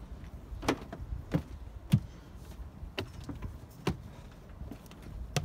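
Footsteps climbing a yacht's molded fibreglass deck steps: about six separate thuds and knocks, irregularly spaced, roughly half a second to a second and a half apart.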